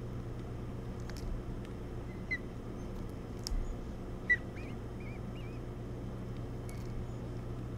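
Ospreys at the nest giving a few short, high chirps over a steady low hum. One chirp comes about two seconds in and a sharper one about four seconds in, followed by a quick run of wavering notes. A few faint clicks are scattered through.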